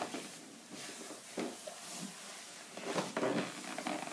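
Socked feet stepping and brushing on bare wooden floorboards during tango back crosses, a few soft, irregular scuffs with a slightly louder cluster about three seconds in.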